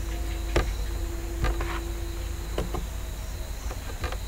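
A handful of sharp computer-mouse clicks, spaced about a second apart, over a steady low electrical hum.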